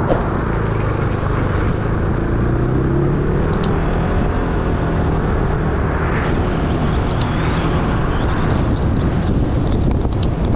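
Car engine and road noise while driving, the engine note rising in pitch a couple of seconds in as the car speeds up. Short double ticks sound three times.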